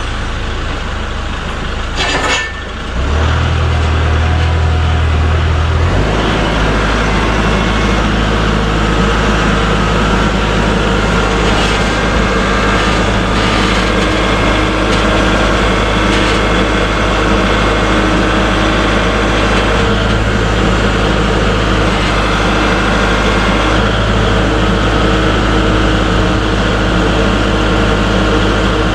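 Kubota tractor's diesel engine running loud and steady, its speed stepping up twice in the first few seconds and then holding, as the tractor works under load lifting a pine log on its forks to help roll it.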